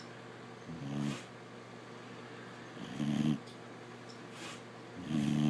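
A sleeping pet snoring: three low snores about two seconds apart.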